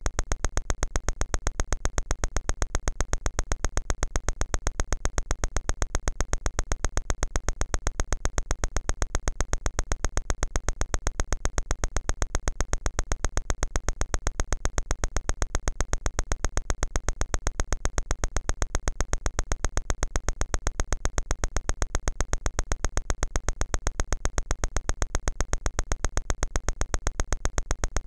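A rapid train of evenly spaced clicks, several a second, unchanging in rate and level.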